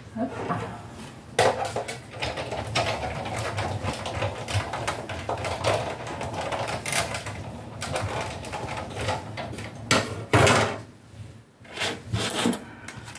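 A die-cutting machine feeding a plate sandwich with a metal die and card through its rollers, one pass forward and back, with a steady rumbling grind. A louder knock comes about ten seconds in as the plates are handled.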